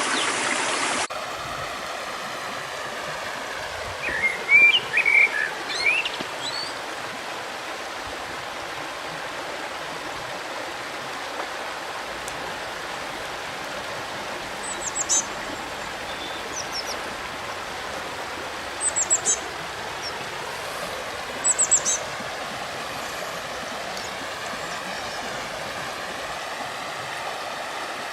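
River water flowing steadily, with small birds calling over it: a run of chirps about four seconds in, then short high calls three times later on. The water sound drops in level about a second in.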